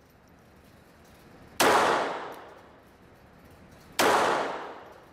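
Two shots from a Ruger Mark III .22 LR semi-automatic pistol, about two and a half seconds apart, each sharp crack followed by a ringing echo that dies away over about a second off the hard walls of an indoor range.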